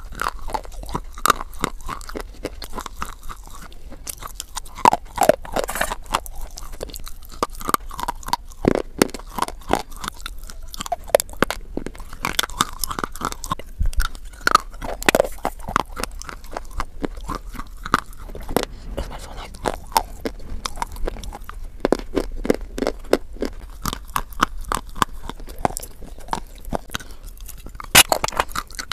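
Close-miked crunching and chewing of dry white edible clay sticks: bites snap off pieces, followed by many quick crisp cracks as they are chewed, with a few louder bites standing out, the loudest near the end.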